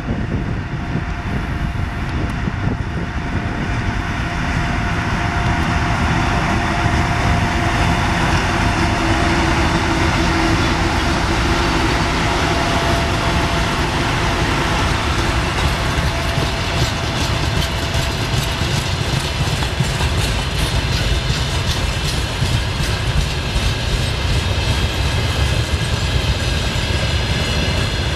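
Two-section 2TE116 diesel locomotive passing close by, hauling a freight train of tank wagons, its diesel engines running with a steady rumble and a faint whine. From about halfway on, the tank wagons follow with a rapid clickety-clack of wheels over the rail joints.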